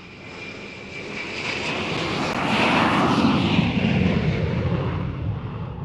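Airplane fly-by sound effect: it swells for about three seconds, passes with a falling pitch, and fades away.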